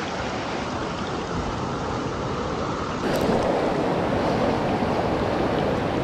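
Mountain stream rushing steadily over rocks; about three seconds in the rush turns abruptly louder and fuller.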